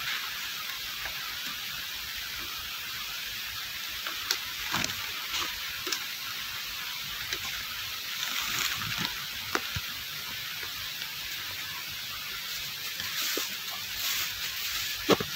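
Steady background hiss with scattered light clicks, knocks and rustling from handling a plastic tie and tag on plastic drums. The sharpest knock comes just after 15 s in.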